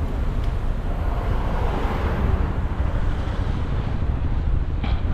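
Wind buffeting the microphone of a GoPro on a moving bicycle: a steady low rumble with road and traffic noise beneath it, and a hiss that swells about two seconds in.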